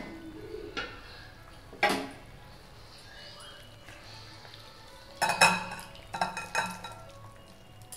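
Stainless-steel sauté pan clanking as it is lifted off a gas stove and tipped over a serving bowl, with a wooden spatula knocking and scraping against the pan to push the curry out. One sharp knock comes about two seconds in and a flurry of clattering knocks follows around five to seven seconds.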